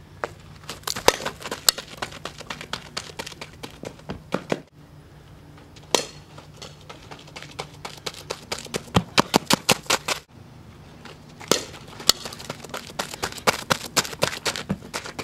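Softball player's cleats running on a dirt infield: quick, irregular footfalls in three stretches that each stop abruptly. A sharp crack opens the second and third stretches.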